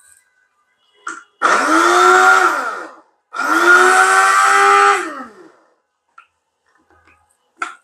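Small electric grinder blending roasted green mango pulp with a green chilli, run in two pulses of about one and a half seconds each. The motor's whine rises as it spins up and falls as it winds down each time. A short click comes just before the first pulse.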